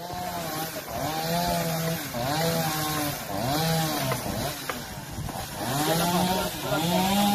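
Small engine of a handheld power tool revved up and down over and over, about once a second, as it cuts.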